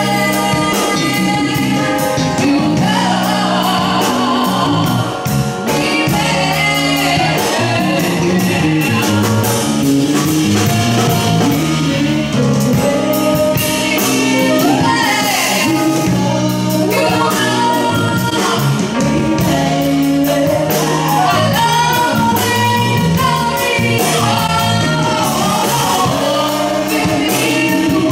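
A woman singing a gospel song into a handheld microphone, with instrumental accompaniment throughout.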